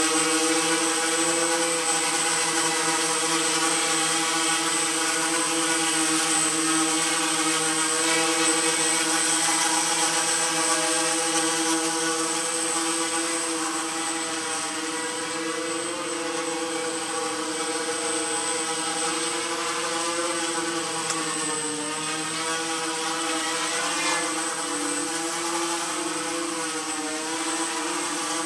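Homebuilt quadcopter's four electric motors and propellers running in flight, a steady buzzing whine. Its pitch wavers up and down as the throttle shifts, more so in the last third.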